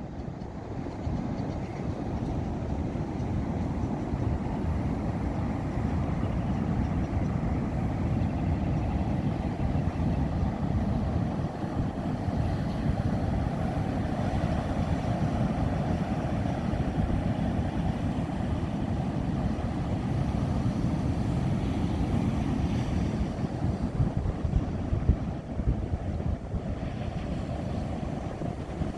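Ocean surf washing steadily onto a beach, mixed with wind buffeting the microphone, which jolts louder a few times near the end.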